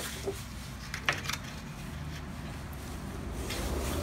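Benchtop drill press running with a low hum, with a few light knocks as the J channel in its wooden jig is lined up under the bit. The hum grows louder near the end.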